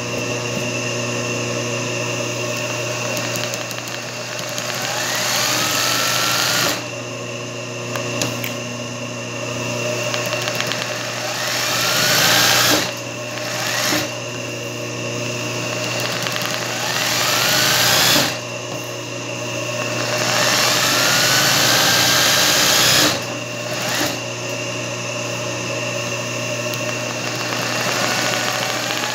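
Singer 20U industrial zigzag sewing machine stitching free-motion embroidery. It runs in spurts: it speeds up with a rising whine, stitches fast, then stops suddenly, about four times, over a steady motor hum.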